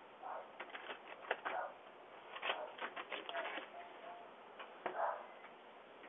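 Footsteps on a concrete walk as a series of short, sharp clicks in quick irregular runs, with a dog barking a couple of times, heard through a doorbell camera's small microphone.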